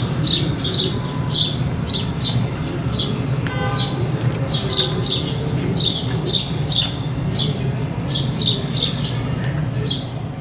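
A bird chirping over and over, about three short chirps a second, over a steady low rumble.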